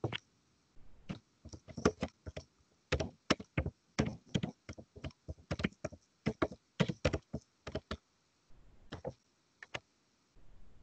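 Typing on a computer keyboard: a quick, irregular run of key clicks, with a short break about eight seconds in and then a few last keystrokes.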